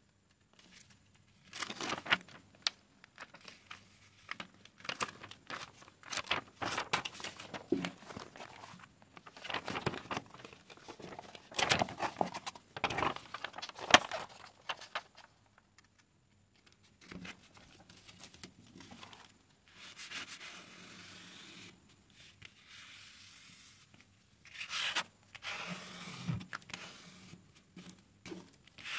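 Large paper sheets of a diamond painting canvas rustling and crinkling as they are handled, lifted and turned over. The rustling comes in irregular bursts with a few short quiet gaps.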